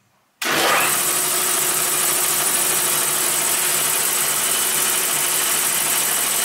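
Eaton Polar Air 10 hp single-phase piston air compressor in its quiet-air baffle box starting up suddenly about half a second in, then running steadily: a low hum under a broad hiss.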